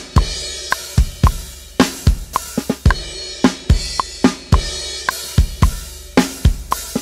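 Acoustic drum kit playing a steady rock groove at 110 bpm: bass drum and snare hits under cymbals, in a regular train of sharp strokes.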